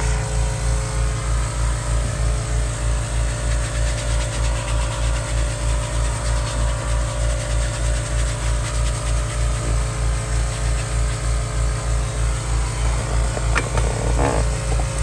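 A motor running steadily, with a low throb about four times a second under a constant hum. A few light knocks come near the end.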